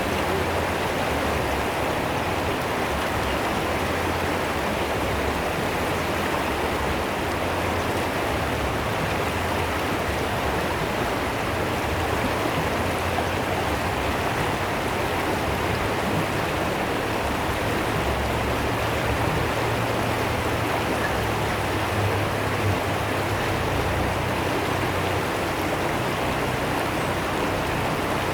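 Fast-flowing river water splashing and running steadily.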